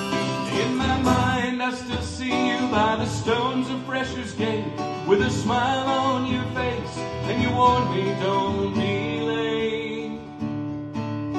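Instrumental break of a live acoustic folk song: banjo picking and acoustic guitar strumming under a harmonica melody played from a neck rack.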